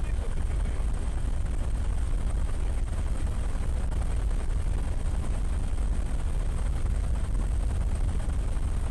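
Steady low rumble of an aircraft in flight, heard from on board, with a faint steady high whine over it.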